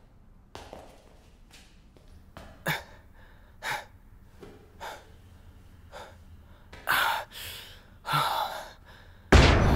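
A person gasping and breathing hard in short, separate breaths, about one a second, the last two longer and louder. Loud music cuts in abruptly near the end.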